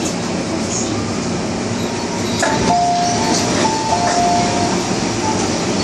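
MTR M-Train running, with a steady rumble of wheels and traction gear. About two and a half seconds in, a falling two-note chime plays twice.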